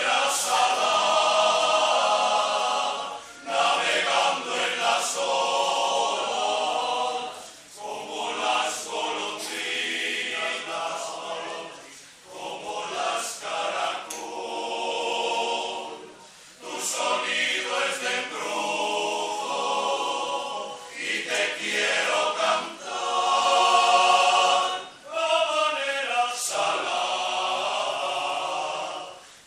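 Men's choir singing unaccompanied, in phrases of a few seconds with brief breaks between them.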